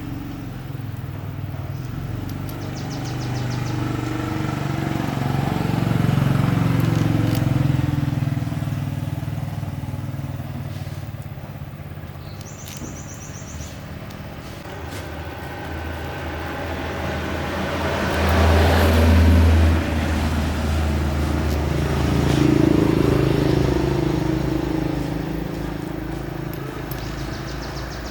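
A motor vehicle engine running, its low hum swelling and fading several times, loudest about two-thirds of the way through.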